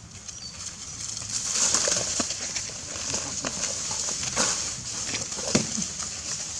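Dry fallen leaves crackling and rustling in irregular snaps, starting about a second and a half in, over a steady high hiss.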